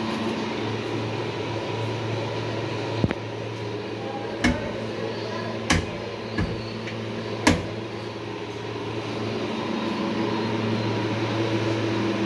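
Five sharp knocks spread over a few seconds, like aluminium kitchen cabinet doors or drawers being shut, over a steady low hum.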